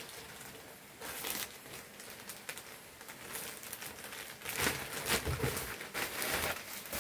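Thin plastic bag crinkling and rustling in the hands as a cap is worked out of it. The sound comes in irregular bursts and is loudest in the second half.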